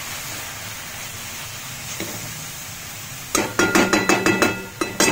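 Cabbage frying with a low sizzle in a metal kadhai. About three seconds in, a metal spatula starts scraping and knocking quickly against the pan as the cabbage is stirred, and the pan rings with each knock.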